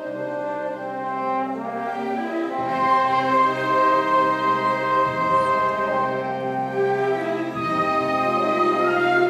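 Student concert band playing sustained chords on woodwinds and brass. About two and a half seconds in, low bass notes enter and come in again every couple of seconds.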